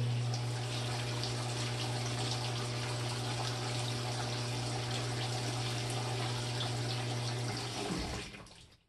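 GE GTW335A top-load washer filling: water running into the tub with a steady low hum. The fill cuts off shortly before the end, as the fill stage completes.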